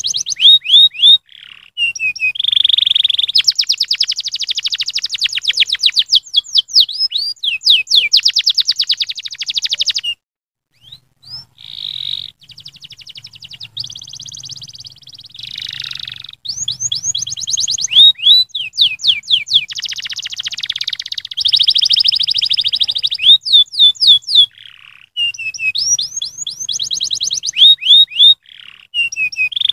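Domestic canary singing a long song of fast trills and rolls mixed with repeated sweeping notes. The song breaks off for about a second around ten seconds in, then picks up again.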